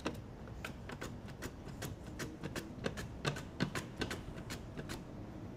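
Sweet potato being sliced on a mandoline: a steady run of sharp clicks, about three a second, as it is stroked across the blade.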